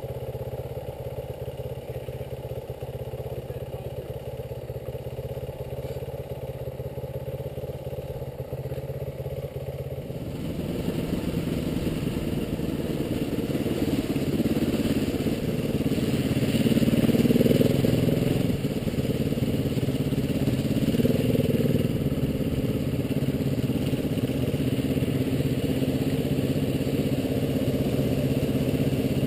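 Road-legal trail motorcycle engine ticking over at idle. About ten seconds in it pulls away and runs at low speed, growing louder, with the revs swelling past the middle and then settling.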